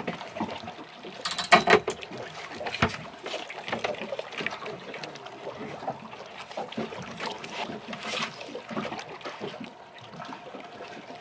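A landing net with a caught fish is handled aboard a small boat: water trickles and drips from the net amid irregular knocks and rattles. The loudest cluster of knocks comes about one and a half seconds in.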